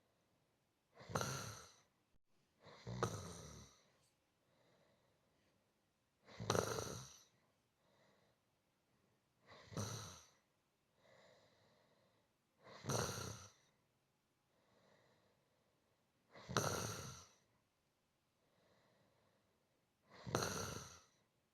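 A person snoring softly and rhythmically: seven snores, mostly about three and a half seconds apart, with a faint breath between each.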